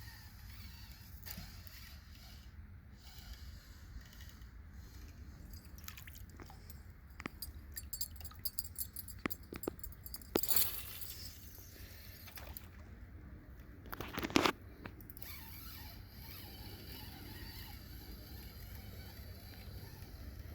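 Fishing rod and reel being worked: a run of quick clicks for a few seconds, then a sharp knock and, about four seconds later, another short loud clatter, over a low steady background rumble.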